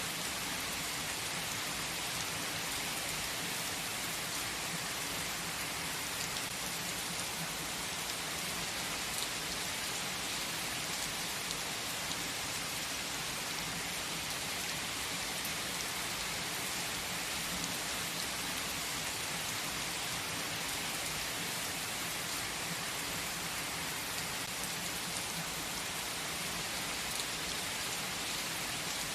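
Steady rain falling: an even, unbroken hiss with occasional sharper drop ticks.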